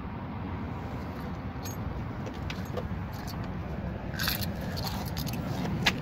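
A few short metallic clicks and jingles in the second half, the sharpest a single click just before the end, over a steady low rumble.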